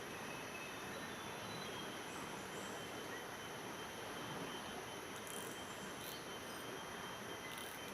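Steady rushing noise of a river flowing, with a few faint high chirps in the second half.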